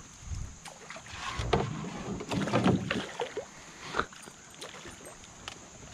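A hooked northern pike splashing and thrashing at the surface beside a canoe as it is brought to the net, with irregular knocks against the boat.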